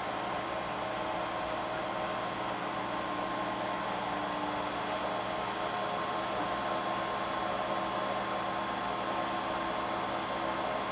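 Geeetech wooden Prusa i3 3D printer running, a steady hum with a clear whine held throughout.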